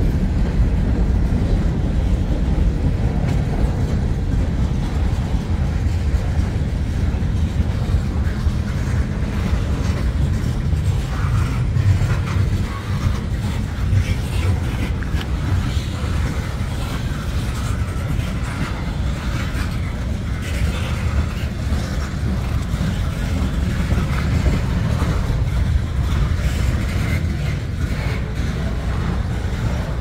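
Freight train cars rolling past, covered hoppers and then tank cars: a steady low rumble of steel wheels on rail. Scattered higher clanks and squeals join in from about ten seconds in.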